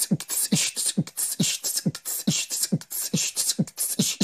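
A rhythmic beat of short, low thumps that fall in pitch, a little over two a second, each followed by a hissing burst like a hi-hat. It sounds like a beatbox or a kick-and-hat loop playing as the soundtrack of a short-video reel.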